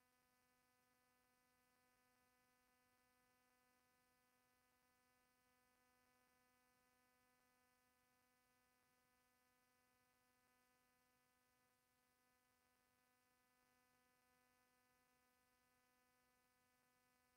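Near silence: only a very faint, steady electrical hum, a single tone with evenly spaced overtones over faint hiss, from a microphone that is not yet working.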